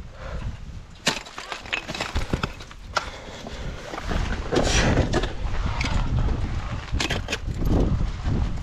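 Ice tool picks swung into and chopping at waterfall ice, with sharp strikes about a second in, at three seconds and around seven seconds, and crunching and splintering of ice in between. A low rumble on the microphone runs under it.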